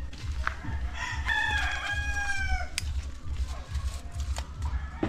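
A rooster crowing once, one long call that falls slightly in pitch at its end, over a low rumbling noise.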